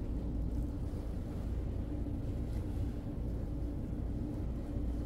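A passenger ferry's engine running steadily under way: a low, even hum with a faint constant tone.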